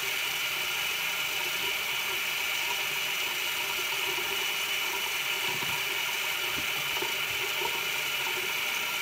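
Electric toothbrush running with a steady buzz during tooth brushing.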